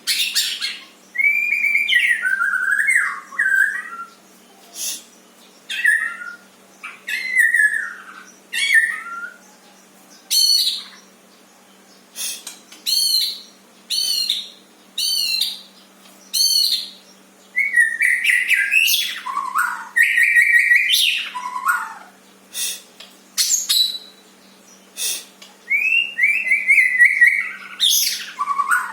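A songbird singing a varied song of short phrases: slurred whistles, rapid high trills and chattering notes, each burst a second or two long with brief pauses between.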